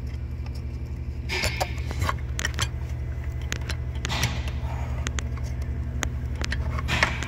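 Plastic multi-pin wiring connector being worked loose by hand from a car's active noise cancellation amplifier module: scattered sharp clicks and short rustles of plastic and wires. Underneath is a steady low rumble with an even pulse, the vehicle running.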